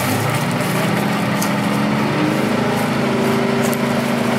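Tank engine running steadily, its pitch rising about two seconds in as it revs up.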